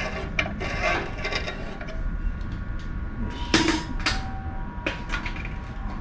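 Ratchet wrench clicking in short irregular runs, with one sharp metallic clank about three and a half seconds in, as the exhaust fittings are being undone.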